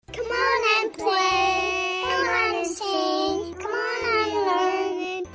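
Intro jingle: a high, child-like voice sings a melody of held notes over a simple bass line.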